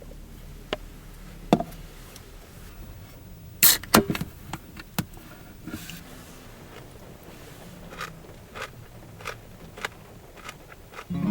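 A scattering of light clicks and knocks from small objects being handled, the loudest cluster about four seconds in, over a faint steady background.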